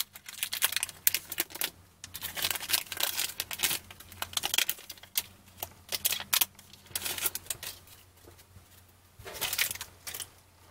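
Foil wrapper of a trading-card wax pack being torn and peeled open by hand: crisp crinkling and tearing in irregular bursts, with short pauses between them.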